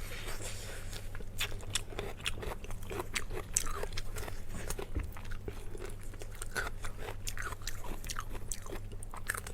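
Close-miked eating: biting and chewing, with many small wet mouth clicks and crunches at an irregular pace over a low steady hum.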